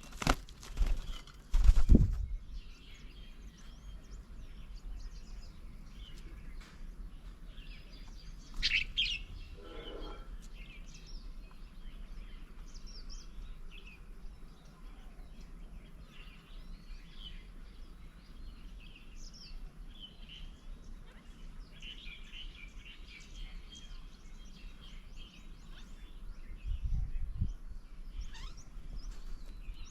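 Several birds calling and chirping, with three loud knocks in the first two seconds, a louder call about nine seconds in, and a low thud near the end.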